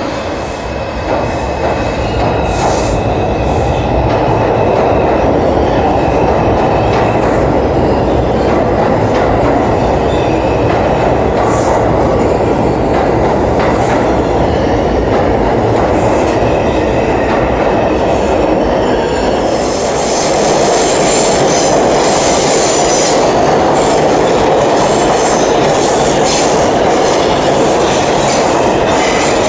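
New York City subway trains running through a station: a steady loud rumble of cars moving along the track. From about two-thirds of the way in, the rumble carries a rapid, dense run of wheel clacks over rail joints.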